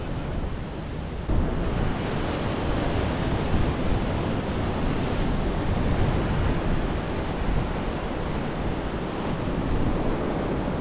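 Ocean surf washing steadily, with wind blowing across the microphone; the noise steps up in loudness about a second in.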